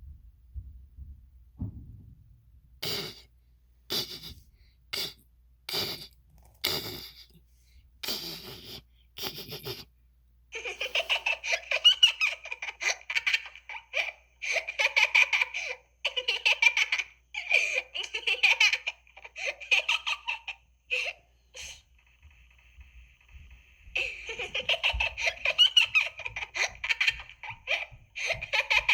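Cartoon girl character's high-pitched laughter. It starts as a string of separate short bursts, then runs into long stretches of continuous giggling, with a brief pause about two-thirds of the way through.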